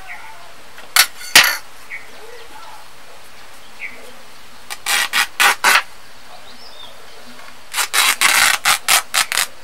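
A thin white sheet being handled and shaken out by hand, giving short, sharp rustling bursts. There are two about a second in, four around the middle, and a quick run of them near the end.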